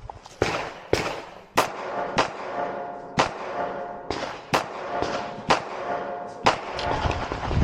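Glock 26 9 mm subcompact pistol firing about eight single shots at an uneven pace, spaced from about half a second to over a second apart, each with a short ring-out.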